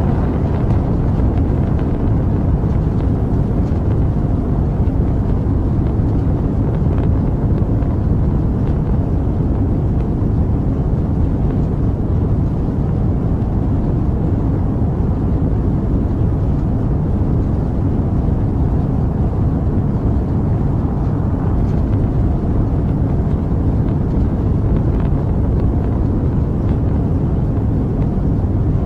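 Rocket engine sound effect: a steady, deep rumbling roar of noise, heaviest in the low bass, without change in level or pitch.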